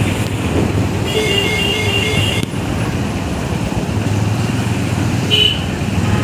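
Road traffic heard from a moving vehicle: a steady engine and road rumble. A horn beeps in a quick run from about one to two and a half seconds in, and gives one short toot near the end.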